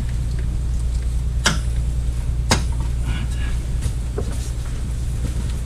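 Two sharp clicks about a second apart, then a few fainter ticks, from hand tools at the rear axle's brake-line connection, over a steady low hum.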